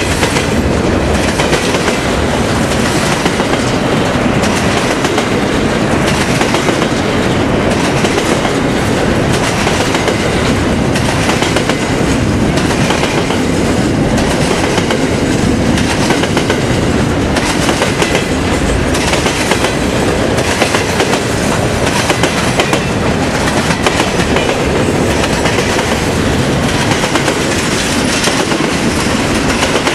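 Freight train wagons rolling steadily past, their wheels clicking over the rail joints.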